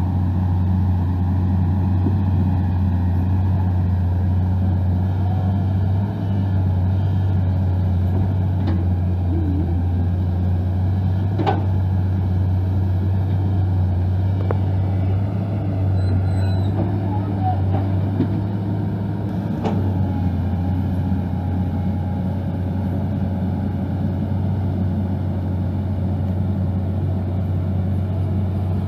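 A large truck or heavy-machine engine running steadily with a deep, even drone, with a couple of sharp knocks about a third of the way and two-thirds of the way in.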